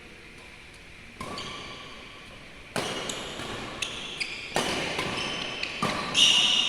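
A badminton rally in an echoing hall: about four sharp racket strikes on the shuttlecock, a second or two apart and growing louder, with shoes squeaking on the court floor.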